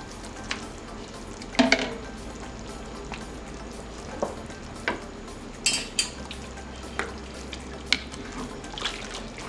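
Thick, masa-thickened chile sauce simmering in a pot as pieces of cooked chicken are lowered into it with a ladle: a steady bubbling hiss with scattered clicks and scrapes of the ladle against the pot, and one louder splash about one and a half seconds in.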